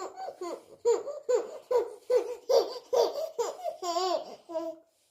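Baby laughing in a long run of short, high-pitched bursts, about two a second, stopping shortly before the end.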